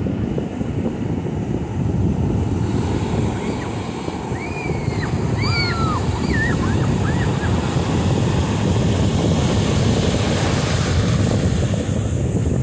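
Ocean surf breaking and foamy backwash washing up the sand, with wind buffeting the microphone as a steady low rumble. A few short, high calls come through about four to seven seconds in.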